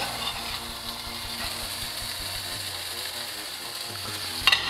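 Steady hiss of a beef patty still sizzling in a frying pan, with a faint steady hum under it and a few light clicks near the end.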